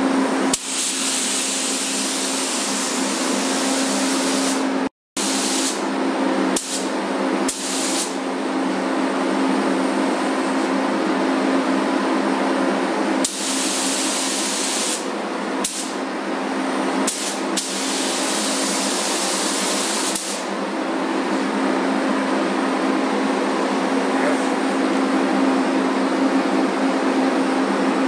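Gravity-feed automotive paint spray gun hissing in bursts of one to a few seconds as the trigger is pulled and released, spraying black paint onto metal trim mouldings. A steady hum runs underneath.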